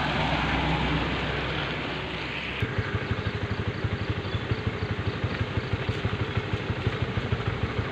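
A steady rush of rain noise gives way, about two and a half seconds in, to an engine idling with a rapid, even putter of about seven to eight beats a second.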